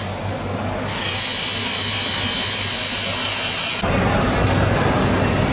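Knife blade being ground on a spinning grinding wheel: a harsh, steady high hiss with a thin ringing tone, easing off for under a second near the start. About four seconds in it cuts off abruptly and gives way to a low steady hum with scattered light clicks.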